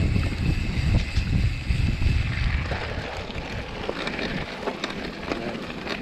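Wind buffeting a mountain biker's camera microphone, heavy at first and easing about halfway through, over the rolling of the bike's tyres on a dirt and gravel trail with scattered light clicks and rattles.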